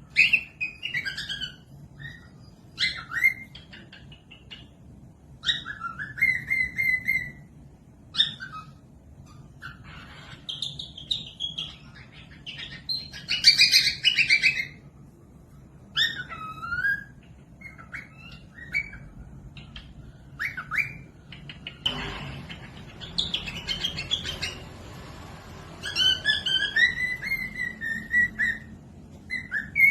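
Cockatiel whistling and chirping in short phrases that glide up and down in pitch, with pauses between them, and a few seconds of hissy noise about two-thirds through.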